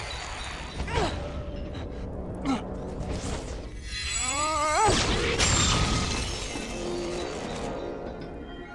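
Animated film soundtrack: crashing and shattering sound effects over music, with a wavering, quivering pitched cry about halfway through.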